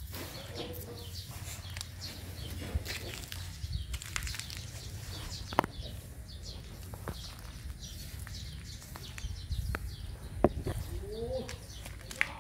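Small birds chirping repeatedly, short high calls scattered throughout, over a low rumble, with a few sharp clicks.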